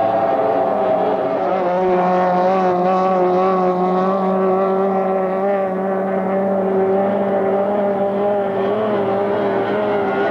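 Racing boats' outboard motors running at high revs on the water, a steady loud drone whose pitch wavers slightly.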